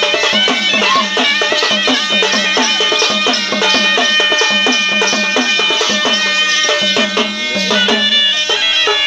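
Traditional folk music: a wind instrument plays a melody over a steady drone while drums keep a quick, even beat.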